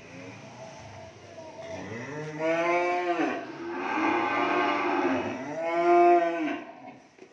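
Cattle mooing: three long moos in a row starting about two seconds in, the last one the loudest.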